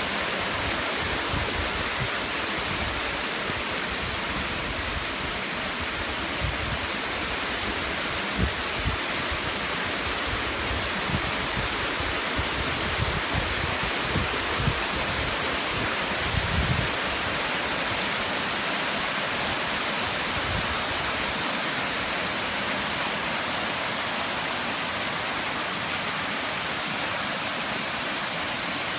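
Mountain stream cascading over rocks in a steady rush of water. A few soft low bumps come through in the middle.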